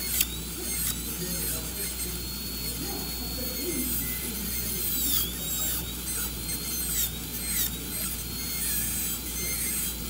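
High-speed dental handpiece whining steadily as its bur cuts a class 1 cavity in a tooth. Its pitch dips briefly several times as the bur is pressed in with short intermittent strokes, with a few sharp clicks between them.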